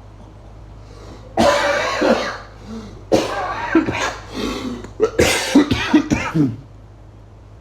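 A person coughing and wheezing in three loud, raspy fits, starting about a second and a half in, three seconds in and five seconds in.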